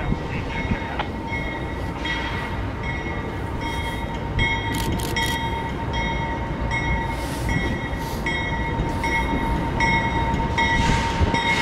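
A diesel freight train of tank cars rolling in, its locomotive engines rumbling under a steady high whine. A bell rings steadily, a stroke about every half second.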